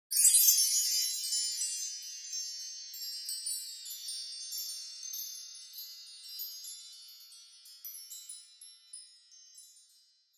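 High, tinkling chimes: a shimmering cluster of bell-like tones that strikes at once, then fades away over about ten seconds with scattered single strikes.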